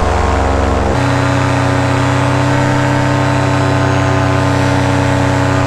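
Paramotor's two-stroke engine and propeller running steadily in flight, heard close up from the pilot's harness. About a second in, the engine's tone changes abruptly to a new steady note.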